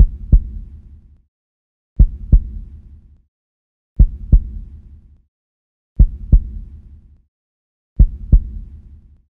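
Heartbeat sound effect: five slow lub-dub double thumps, one every two seconds, each trailing off over about a second.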